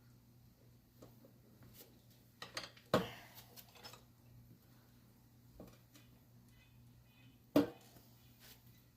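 Scattered clicks and knocks of hand tools and motorcycle wheel parts being handled during a tube change, with two louder clanks about three seconds in and near the end, over a steady low hum.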